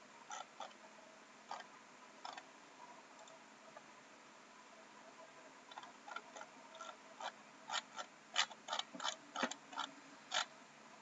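Faint computer mouse clicks: a few scattered ones at first, then a quick irregular run of clicks from about six seconds in until near the end.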